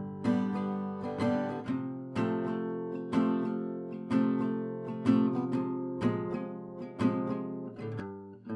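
Background music: an acoustic guitar strumming chords at a steady pace, about one strong strum a second.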